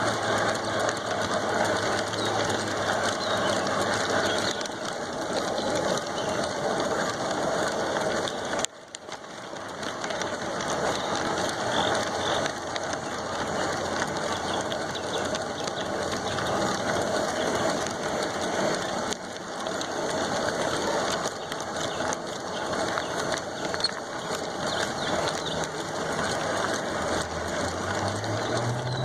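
G-scale model train running along its track: a steady mechanical whir and rattle of the motor, gears and wheels, which drops out briefly about nine seconds in and then carries on.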